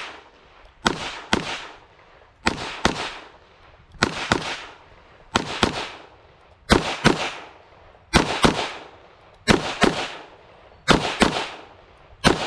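Smith & Wesson M&P 2.0 semi-automatic pistol firing .22 WMR rounds in quick pairs, about one pair every second and a half, each sharp crack followed by a short ring-off. The pistol cycles every round without a malfunction.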